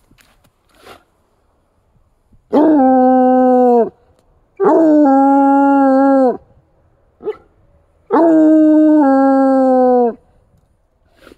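Bluetick coonhound baying: three long, drawn-out howls, each held at a steady pitch and dropping off at the end, with short pauses between. The hound is set off by fresh deer sign.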